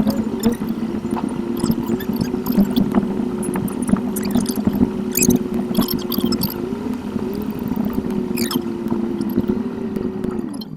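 Car engine and road noise recorded inside the cabin by a dashcam and sped up eight times, heard as a steady hum whose pitch wavers now and then, with scattered ticks.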